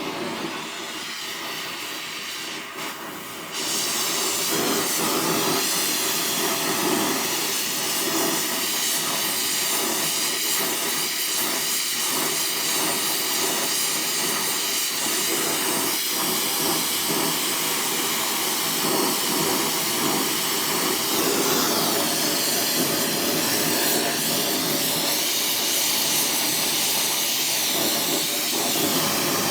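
A steady, loud rushing hiss of a gas or air jet, stepping up louder about three and a half seconds in and then holding steady.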